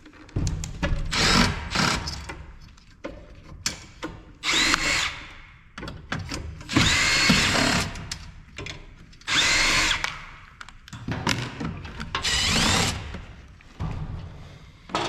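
Power screwdriver spinning screws out of an LCD monitor's case in a series of short bursts, each a second or two long, the motor whining up and down in pitch with each screw.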